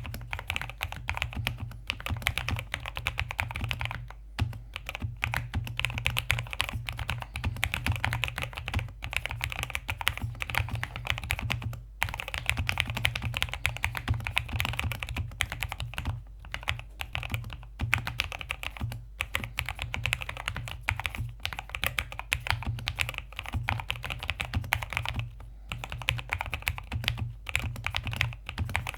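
Continuous fast typing on a mechanical keyboard with Gateron Milky Yellow linear switches under thick PBT keycaps in an Ajazz AK820 case, with a few brief pauses.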